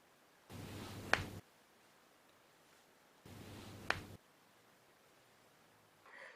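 Toe joints being cracked by hand: two sharp pops, about a second in and again near four seconds, each amid a brief soft rustle of handling.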